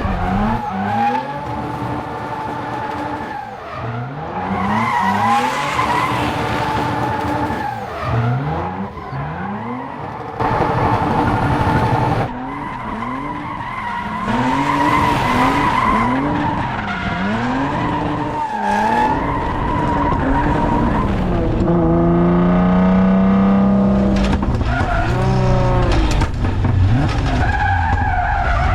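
Tuned 600 hp Nissan 350Z drift car, its engine revving up and down over and over while the tyres squeal through long slides. About three-quarters of the way through, the engine holds a steady note for a couple of seconds.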